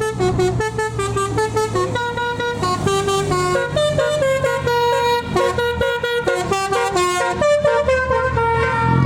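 Telolet basuri multi-tone horn playing a fast tune of short stepped notes, over the steady low running of a vehicle engine. The tune stops near the end as the engine sound swells.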